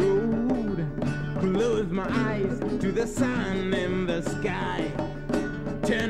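Music from an early-1970s demo recording cut on an acetate disc: a continuous song passage with a melody line over sustained accompaniment.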